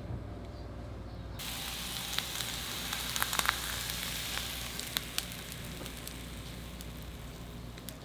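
Food sizzling in a hot frying pan, swelling about a second and a half in, with a few sharp clicks of a utensil against the pan in the middle.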